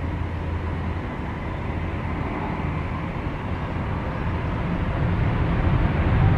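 Jet airliner's engines: a steady rumble with a faint whine, growing louder toward the end as the aircraft comes closer.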